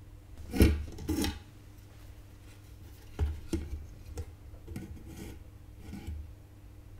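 Tools and parts being handled on a soldering workbench, scraping and rubbing: two short, loud scrapes about half a second apart near the start, then a run of lighter scrapes and taps.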